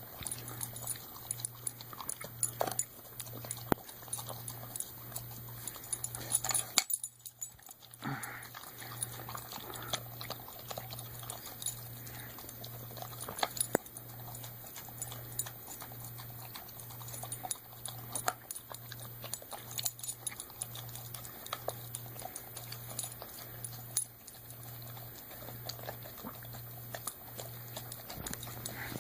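Golden retriever eating out of a can: irregular wet clicks and smacks of tongue and teeth working the food, with occasional scrapes against the can.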